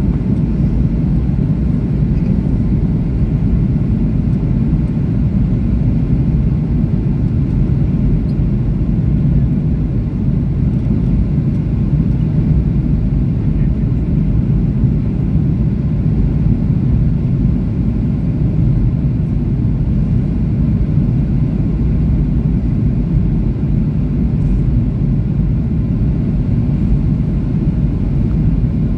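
Steady low rumble of a Boeing 737-800's CFM56 engines and airflow inside the passenger cabin, heard from a window seat beside the wing during the descent on approach.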